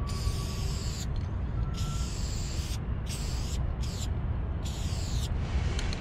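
Aerosol spray-paint can hissing in five short bursts, each under a second, with short gaps between them, over a steady low rumble.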